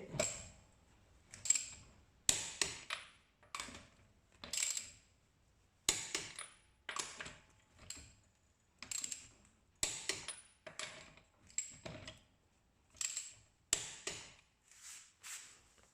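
Metal hand tools, a torque wrench and its sockets, being worked and handled: a long run of irregular sharp metallic clicks and clinks, each ringing briefly, roughly one every half second to a second.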